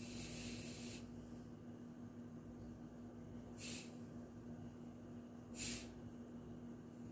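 A person sniffing twice, short and sharp, about three and a half and five and a half seconds in, over a faint steady hum; a fading hiss fills the first second.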